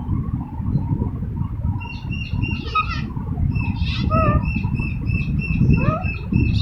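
Green ringneck parakeet chirping: a quick run of short, high, evenly repeated chirps starts about two seconds in, broken by three quick rising whistles. A steady low rumble lies underneath.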